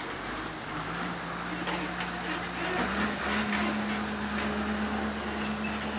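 Truck's diesel engine running as the tractor unit manoeuvres a container trailer, a steady hum whose pitch steps up about three seconds in as the engine speeds up.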